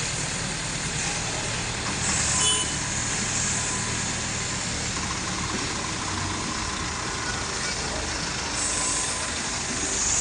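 Heavy vehicle's diesel engine running steadily, with a hiss that swells briefly twice, about two seconds in and near the end.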